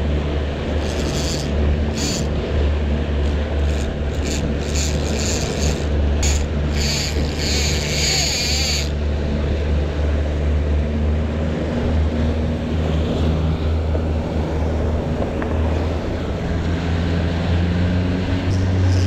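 Yamaha 115 outboard motor running steadily at slow trolling speed, a low even drone, with the rush of the boat's wake. For the first nine seconds or so, uneven higher hissing comes and goes over it, then stops.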